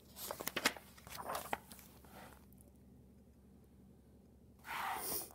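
A paper page of a hardcover picture book being turned by hand, rustling and crackling in the first two seconds, followed near the end by a single short breathy whoosh.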